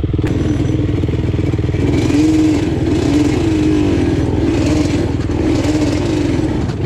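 A Yamaha Banshee quad's two-stroke twin engine idles, then is revved up and down several times as the quad pulls away along a dirt track.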